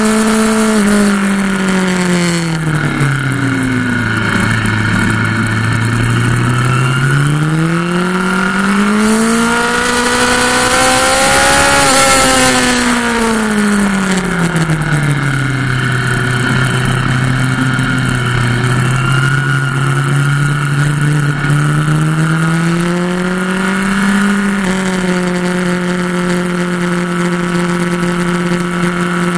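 Motorcycle engine heard from the bike itself on a racetrack, the revs falling as the throttle is rolled off about three seconds in, climbing to a peak around twelve seconds, dropping again for a long steady stretch, then rising once more near the end. Wind rushes over the microphone at the fastest point.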